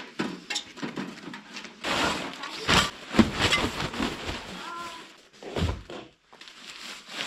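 Irregular rustling and knocking of camp gear being handled while a winter shelter is set up, with a dull thud about two-thirds of the way through.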